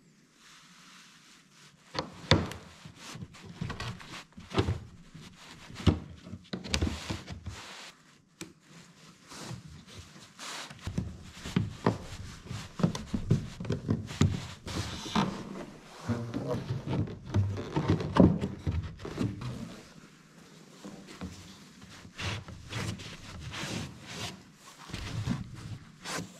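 Wooden blocks and wood strips being handled and pressed into place on a strip-built canoe hull: irregular knocks, taps and rubbing that start about two seconds in.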